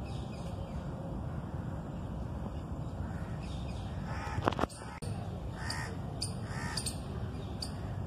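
Crows cawing outdoors, a few calls around the middle, the loudest about halfway through, over steady low background noise. A few short high ticks near the end.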